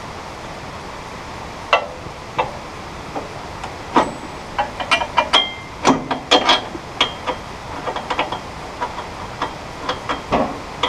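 Bolts, nuts and washers clicking and clinking against the steel frame of a Woodland Mills HM122 sawmill as the bolts are fitted by hand. The irregular clicks come thickest in the middle, a few ringing briefly like struck metal, over a steady background hiss.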